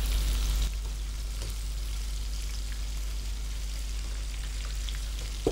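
Cooking oil poured from a jug into a nonstick kadai on a gas burner; the pour stops under a second in. After that there is a steady low hiss with a few faint ticks as the oil heats in the pan.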